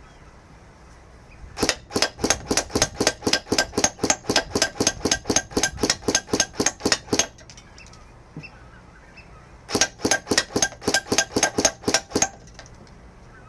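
CYMA MP5 Platinum airsoft electric gun firing two strings of shots, each a rapid run of sharp cracks at about five or six a second. The first string lasts about five and a half seconds; after a short pause, a second string lasts about two and a half seconds.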